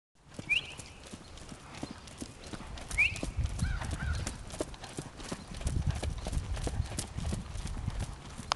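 American Saddlebred gelding trotting on arena dirt, a quick steady run of hoofbeats. Two short, high rising chirps cut in, about half a second in and again about three seconds in.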